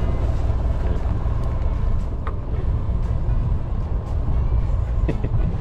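Steady low rumble of the ambience on a small fishing boat at sea, with a few faint clicks.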